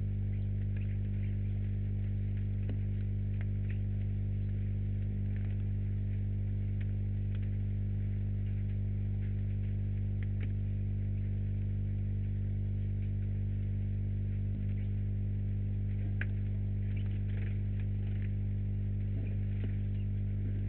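Steady electrical mains hum with a buzz on the webcam's audio, with faint short ticks scattered over it.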